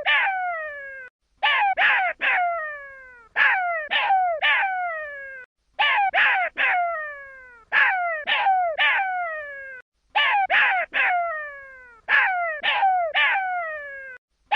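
Jackal pup crying: groups of three quick high-pitched cries, each sliding down in pitch, repeated about every two seconds.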